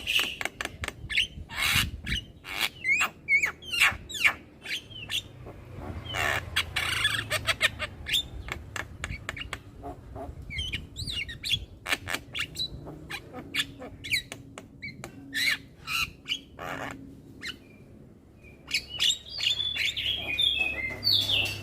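Young Javan myna chattering without pause: a rapid, irregular run of harsh squawks, sharp clicks and short whistled notes.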